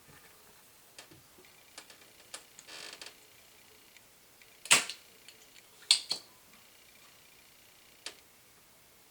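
Scattered sharp clicks and taps of desoldering tools being handled on a workbench, with a brief rattle about three seconds in and two loud snaps about a second apart in the middle.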